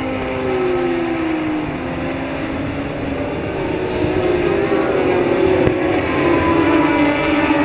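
Several racing motorcycle engines at high revs as a pack of superstock sport bikes goes by. Their pitches slide down as bikes pass and climb again as they accelerate, getting louder from about four seconds in as two bikes come past close.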